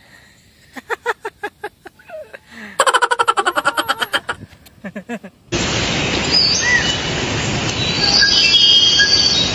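A man laughing heartily in quick bursts. About five and a half seconds in, a steady rushing nature ambience with birds chirping cuts in.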